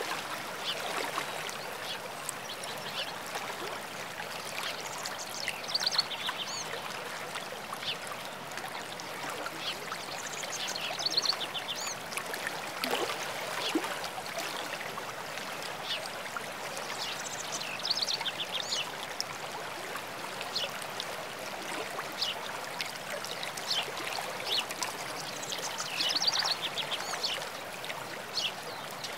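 Steady rush of a stream spilling over rock, with birds singing short high trills and chirps several times.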